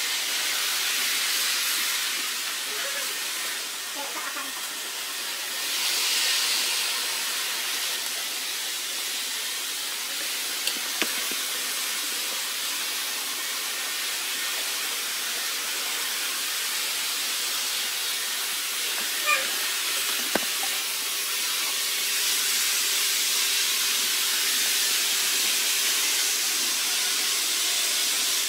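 Steady hissing whir of model trains running on a large layout, swelling about six seconds in and again near the end, with a few faint clicks.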